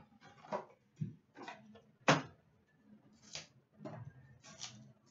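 Hands handling a cardboard trading-card box and the card packs inside it: a string of short rustles and taps, the loudest about two seconds in.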